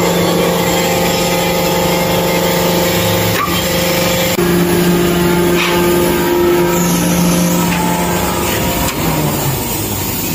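Electric motor driving the hydraulic oil pump of a shearing machine, running steadily with a hum after a star-delta start; its note changes about four and a half seconds in. It runs now that the wrongly connected start-button wire has been corrected.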